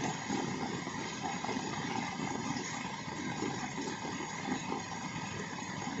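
Heavy rain falling onto a flooded paved lane: a steady, dense hiss and splatter of drops hitting standing and running water.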